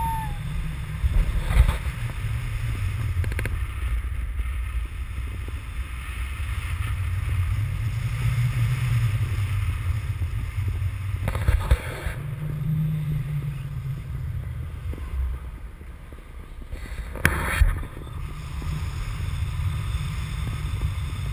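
Airflow buffeting a GoPro camera's microphone in flight under a paraglider: a steady low rumble. Three brief louder bursts break through it, about a second and a half in, around halfway through, and about three-quarters of the way through.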